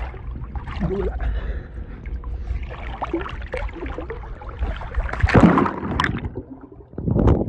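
Pool water sloshing and splashing around a phone held at the surface. A loud splash comes about five seconds in as the phone goes under, the sound turns muffled underwater, and there is another splash near the end.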